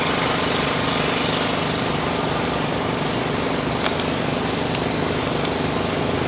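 Jet airliner engines running at a steady level: a continuous noise with a low hum of steady tones under it.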